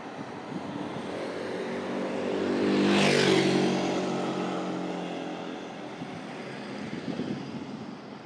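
A motor vehicle drives past, its engine growing louder to a peak about three seconds in, then dropping slightly in pitch and fading away.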